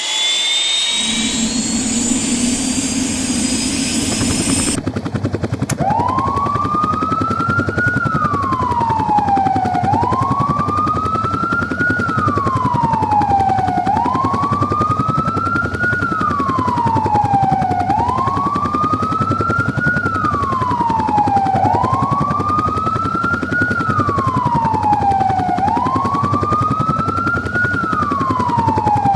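Police helicopter's turbine and rotors running with a steady chop, a high turbine whine climbing over the first few seconds. From about five seconds in, a siren wails over the helicopter, rising quickly and falling slowly about once every two seconds.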